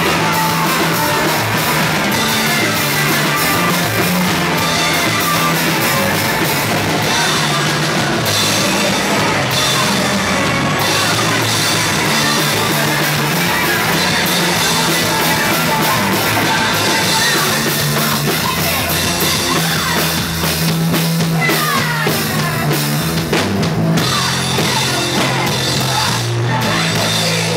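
A rock band playing live and loud: a pounding drum kit, electric guitars and bass, with a vocalist singing over them.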